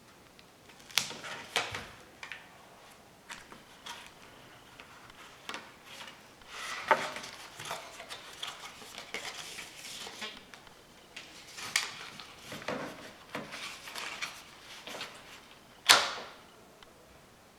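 Hands handling and working on parts of a homemade catapult: scattered clicks, knocks and short rustling stretches, with one sharp snap near the end.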